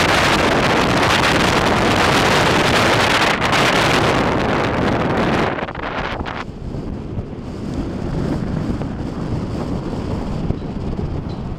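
Wind rushing over the microphone of a moving car, a loud hiss for about the first half. About halfway through it drops suddenly to a quieter, lower rumble of the car on the road.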